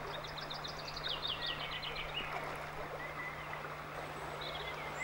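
River water running steadily, with a songbird singing a quick run of notes that falls in pitch over about two seconds, then a few short whistled notes near the end.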